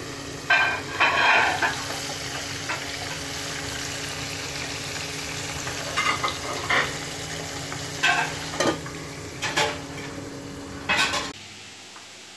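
Whole fish frying in hot oil in a pan, a steady sizzle broken by several sharp metal clinks and clatters against the pan. The sizzle stops suddenly near the end.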